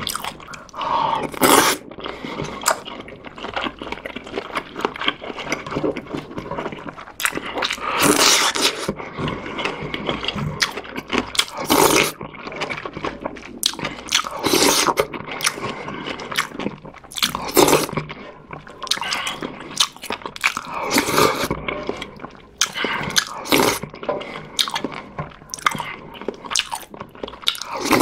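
Close-miked eating: chewing and biting mouthfuls of ramen with sausage, in bursts every couple of seconds.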